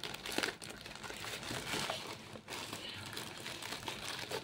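Plastic packaging crinkling and rustling in irregular small crackles as a shipping parcel is handled.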